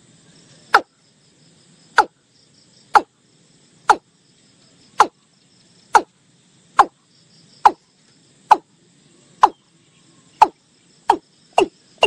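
Watercock calling: a series of short, low notes, each dropping sharply in pitch, about one a second, coming faster in the last couple of seconds.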